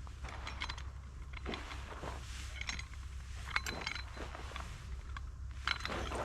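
Scattered light metallic clinks and rustles of gear being handled and adjusted, one clink ringing briefly about halfway through, over a low steady rumble.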